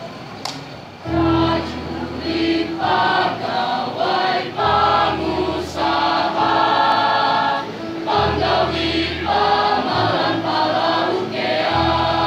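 Mixed school choir of girls' and boys' voices singing a song in harmony, coming in about a second in with long held chords, picked up through microphones on stands.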